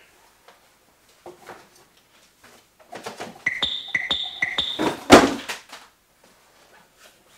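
Objects being handled on a desk: light knocks and rustling, three short, evenly spaced high beeps about three and a half seconds in, and a loud burst of rustling and knocking just after five seconds.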